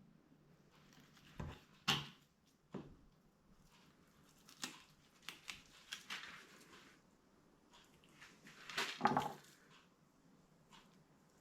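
Scattered light knocks, taps and rustles of handling on a kitchen work surface as fish fillets and utensils are moved about, with a louder clatter about nine seconds in.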